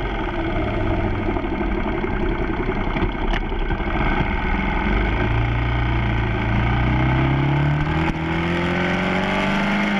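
Motorcycle engine heard from the handlebars with wind rushing over the microphone; over the second half the engine note rises steadily as the bike accelerates out of a turn.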